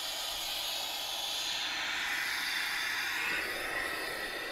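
Compressed air hissing out of a resin-casting pressure pot through its release valve as the 20 psi inside is let down slowly. It is a steady hiss, and a whistling note in it slides lower from about halfway through.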